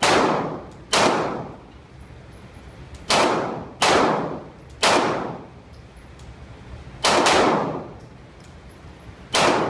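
Seven pistol shots from a Glock, fired at an uneven, unhurried pace with gaps of roughly one to two seconds, each crack trailing off in a short echo.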